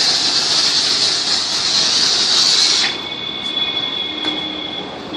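Foam machine spraying with a loud, steady high hiss that cuts off sharply about three seconds in, leaving a faint high whine that dies away.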